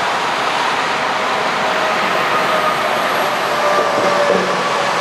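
Airbus A320's jet engines at taxi power heard from afar: a steady rushing noise with faint whining tones, one of which slides down in pitch about four seconds in.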